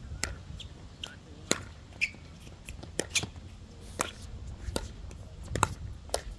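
Pickleball rally: paddles striking the hollow plastic ball in a string of sharp, irregular pops, about a dozen, with the ball's bounces on the hard court among them. Wind rumbles low on the microphone.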